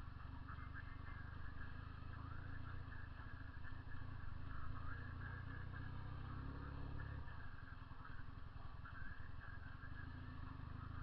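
Honda CB 400 II parallel-twin motorcycle engine running under way with its loud exhaust note. It grows heavier for a few seconds in the middle, then eases off.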